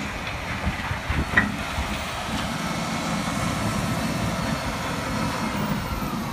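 Volvo wheel loader's diesel engine running steadily as the machine pushes soil with its bucket.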